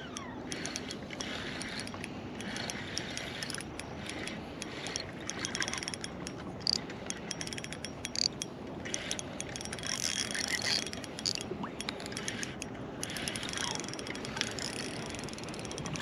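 Fishing reel being cranked, a fast, steady clicking of its gears as a hooked bass is reeled in.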